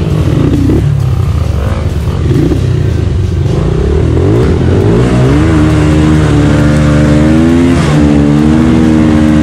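Motorcycle engine running with its revs rising and falling.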